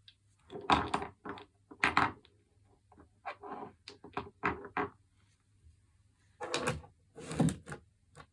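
Small glass nail polish bottles knocking and clattering as they are picked up and set down on a wooden floor and in a plastic basket, in irregular bursts of a few knocks each.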